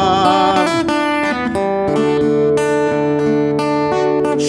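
Instrumental break in a gospel song: acoustic guitar with sustained backing chords. The last held sung note dies away within the first second.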